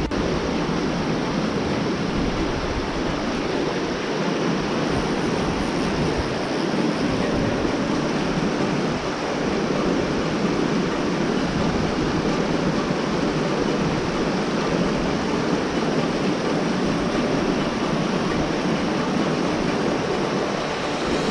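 Steady rush of creek water pouring over shallow rock ledges and riffles.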